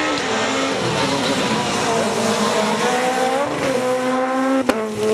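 Peugeot 207 S2000 rally car's four-cylinder engine revving hard under acceleration, its note dropping at each gear change and climbing again. A single sharp click near the end.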